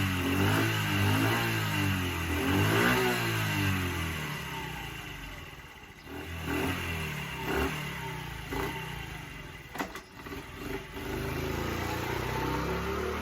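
Honda Chaly's small four-stroke single-cylinder engine running on fresh fuel after a restart: revved up and down several times, then given a few short throttle blips. The revs sag briefly about ten seconds in before it settles to a steady idle.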